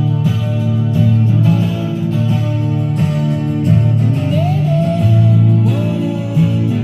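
A song with guitar and singing playing from an FM radio station through the 1968 Magnavox Astrosonic stereo console's restored solid-state tuner and amplifier.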